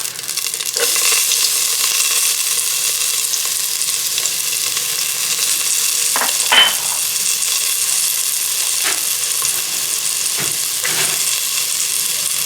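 Chopped garlic sizzling steadily in a pan of hot rendered chicken fat and cooking oil, the sizzle picking up about a second in, with a few brief scrapes and knocks of a utensil stirring it.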